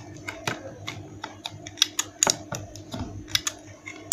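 Irregular sharp plastic clicks and taps, several a second, as a hand works the trigger and trigger-lock button of a corded hand drill that is not running.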